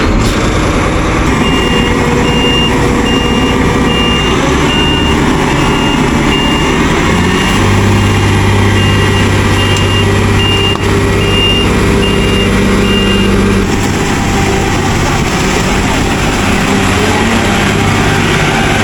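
Claas combine harvester's diesel engine running steadily after start-up, with a high warning beep repeating about twice a second for the first dozen seconds. About halfway through a deeper steady hum joins in.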